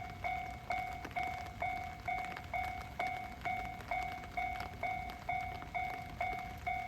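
Japanese railway level-crossing warning bell ringing, one steady-pitched ding repeating about twice a second.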